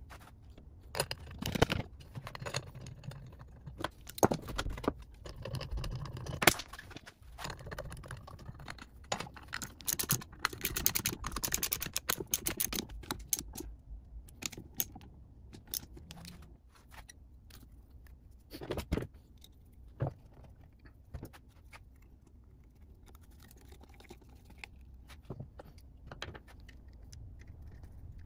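Metal hand tools and motor parts clicking and clinking during assembly, with a stretch of rapid socket-ratchet clicking partway through as the golf cart motor's end housing bolts are driven.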